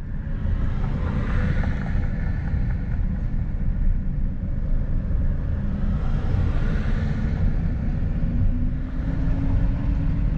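Steady low rumble of road and engine noise inside a moving vehicle's cabin, with a low hum that rises slowly in pitch in the second half.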